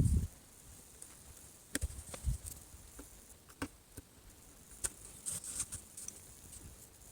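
Small handling noises at a workbench: a soft thump at the start, then scattered sharp clicks, ticks and taps of hands, tools and tape working on the phone, with a few quick ones bunched together just past the middle.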